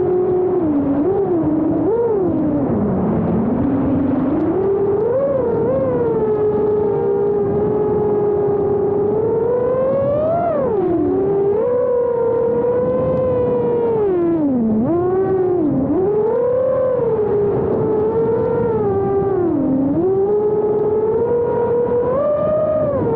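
A 5-inch FPV quadcopter's brushless motors and propellers whining on a 6S battery, the pitch constantly rising and falling with the throttle and dropping sharply several times.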